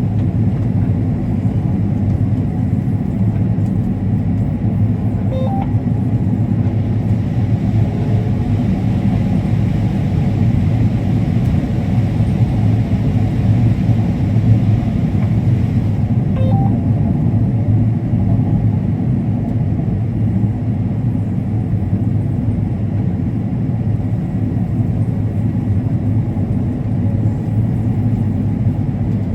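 Combine harvester running steadily while harvesting corn, an even low rumble of engine and threshing machinery. Two faint short tones sound about a third and about halfway through.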